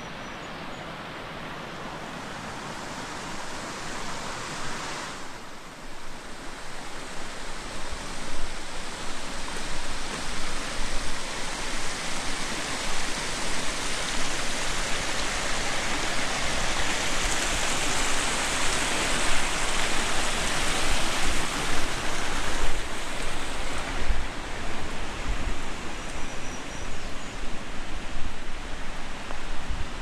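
Steady rushing water, as of a mountain creek or waterfall, growing louder over the first several seconds, with irregular low rumbles underneath.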